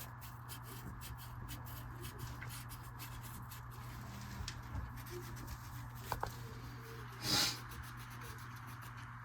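Sandpaper lightly rubbing a furnace flame sensor's metal rod: faint, irregular rubbing strokes, with a couple of small clicks about six seconds in and a short, louder scrape just after.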